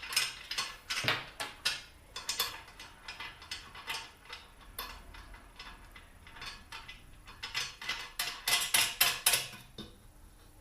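Metal clicks and clinks of screws and hand tools being handled while the column is screwed onto the aluminium frame. The clicks come in two busy spells, early and again near the end, with a sparser stretch between.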